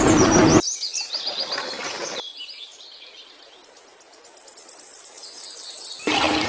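A loud rumbling noise cuts off about half a second in, leaving birds chirping and a faint high insect trill; a loud burst of noise comes back near the end.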